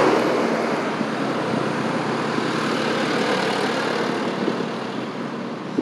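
Road traffic: a passing car's tyre and engine noise, fading gradually.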